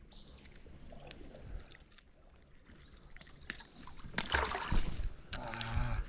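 Handling noises in a plastic kayak: faint clicks and rustles at first, then louder irregular knocks and rustling from about four seconds in.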